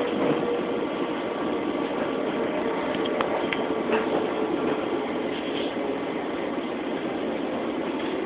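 Running noise inside a Long Island Rail Road commuter train car as it rolls into a station: a steady rumble and hiss, with a faint held tone in the first few seconds and a few light clicks.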